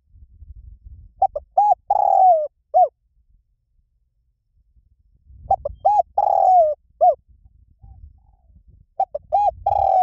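Spotted dove cooing its song three times, in the 'liu tan' call style. Each phrase is a few short coos, then one long falling coo, then a short final coo.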